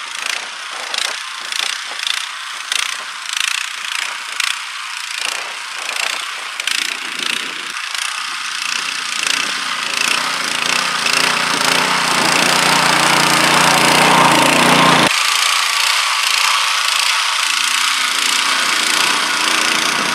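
Texas petrol motor cultivator running, its rotating tines milling hard, grassy soil. The noise pulses about once every three-quarters of a second for the first several seconds, then evens out and grows louder.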